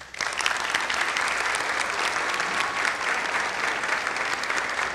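Audience applauding, a steady patter of many hands clapping that starts abruptly and keeps on.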